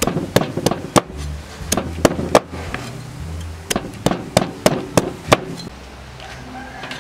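A broad cleaver chopping through a noni fruit onto a wooden cutting board. There are about fourteen sharp knocks in three quick runs, stopping about five and a half seconds in.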